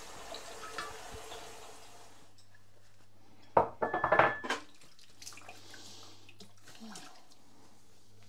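Kitchen tap running into a sink and turned off about two seconds in, followed by a brief loud clatter of dishes knocking in the sink. A washing machine hums low and steadily in the background.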